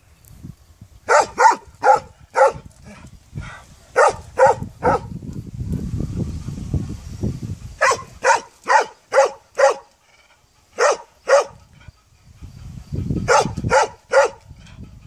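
A large dog barking in separate runs of two to five quick barks, about five runs in all, each bark short and sharp.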